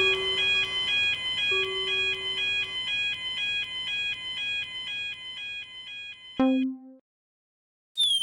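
Japanese railroad crossing warning bell (the 'kan-kan' of a fumikiri), an electronic ding alternating between two pitches in a steady rhythm and fading away. About six seconds in it breaks off with a click and a short low tone, then a second of silence, and a falling whistle-like glide begins at the very end.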